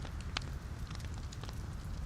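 Wood logs burning in a fireplace: a low steady rumble of flame with scattered sharp crackles and pops, the loudest pop about a third of a second in.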